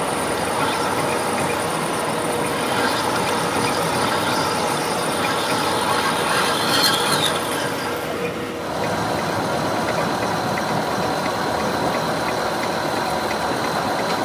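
Heavy workshop machinery running steadily, with a brief high-pitched metallic squeal about seven seconds in and a short lull just after eight seconds.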